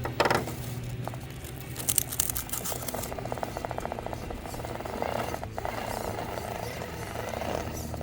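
Axial SCX10 II Deadbolt RC rock crawler's electric motor and gear drivetrain whirring in rapid pulses as it crawls over rock, with a few knocks and rattles from the chassis.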